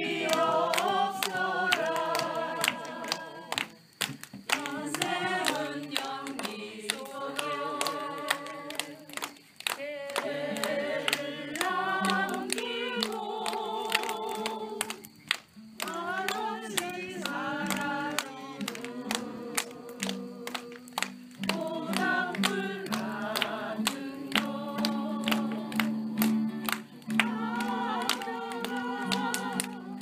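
A group of people singing together in unison, phrase after phrase, with hand claps along.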